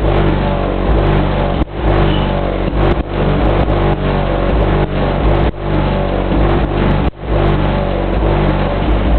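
Two Fi Audio BL 15-inch subwoofers in a car playing a bass track at extreme volume, reading about 136 to 140 dB on the SPL meter. It comes through as a heavy, overloaded low rumble with short drops every second or two.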